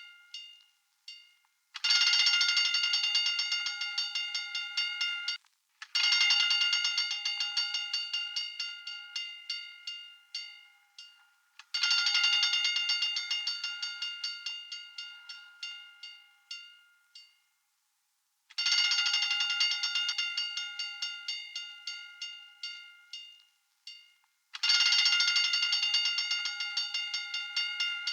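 Fire alarm bell ringing with rapid repeated clapper strikes, in bursts of about five seconds separated by short gaps. Each burst starts loud and fades.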